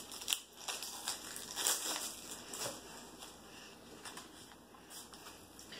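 Plastic shrink wrap crinkling and tearing as it is pulled off a deck of game cards, in short bursts that are loudest in the first two seconds, then fainter rustling as the cards are handled.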